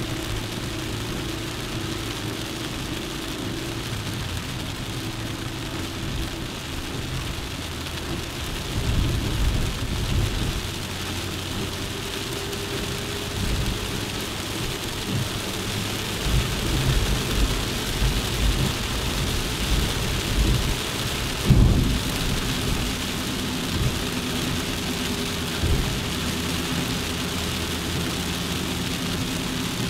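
Suzuki Jimny driving, heard from on board: a steady engine note under a constant hiss. Irregular low rumbles and thumps come through from about a third of the way in, with one sharp loud thump about two-thirds through.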